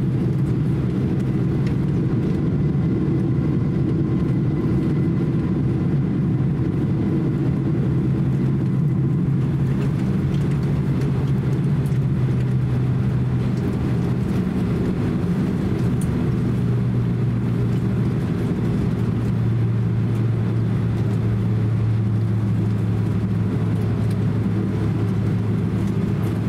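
Cabin noise inside a Boeing 767-300 as it taxis after landing: a steady low rumble with the hum of the jet engines at taxi power.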